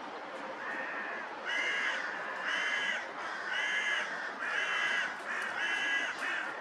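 Hooded crow cawing: a series of six harsh caws about a second apart, the first fainter and the last five louder.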